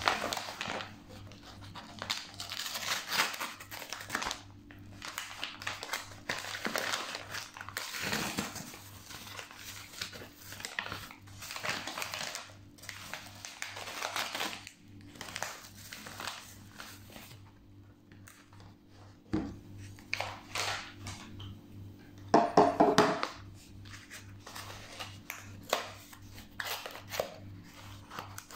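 Brown kraft-paper mailer crinkling and rustling as it is cut open with scissors, torn and handled, in irregular crackles with a louder burst a little past the middle.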